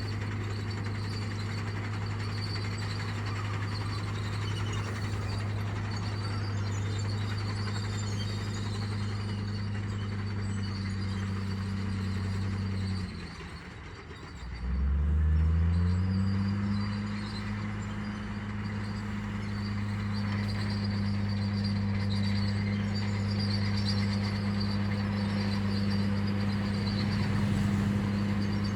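Heavy construction machine's engine running at a steady pitch. About halfway through, the sound drops away for a second or two, then the engine comes back with a rising pitch and settles into a steady run again.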